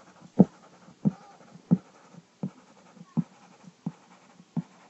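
Pen marking short shading strokes one after another on a writing surface. Each stroke lands as a soft knock, about one every two-thirds of a second, seven in all.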